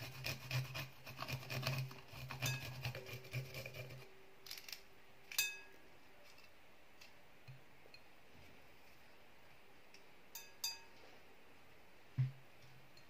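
A garlic clove rubbed back and forth on a small perforated metal grater, making quick rasping strokes for about four seconds. A few light clinks follow later.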